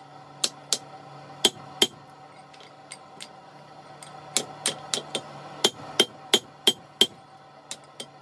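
Hand hammer striking hot steel held in tongs on an anvil, each blow ringing with a metallic clang. Two pairs of blows come at the start, then a short pause with a couple of light taps, then steady blows about three a second. A faint steady low hum runs underneath.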